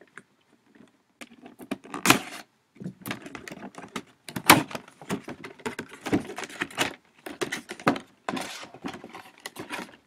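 A sealed mini-helmet collectible box being unwrapped and opened by hand: irregular crackling of its wrapping and rustling and scraping of the cardboard.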